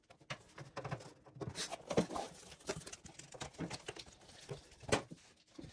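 Irregular clicks, scrapes and knocks of a screwdriver working a screw at a washing machine's plastic lower front panel, with hands handling the panel. The sharpest knocks come about two seconds in and just before five seconds.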